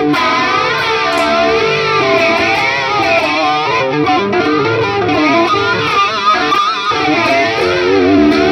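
Driven electric guitar played through a chorus modulation effect set for a jet-like, flanger-style sweep that keeps rising and falling.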